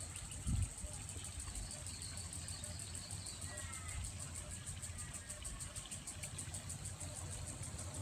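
Garden ambience: a steady, rapidly pulsing high insect trill with a few faint bird chirps over a low rumble, and a brief low thump about half a second in.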